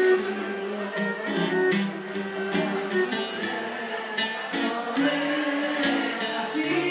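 A woman singing a song into a microphone over a live instrumental accompaniment, holding long notes that change in pitch.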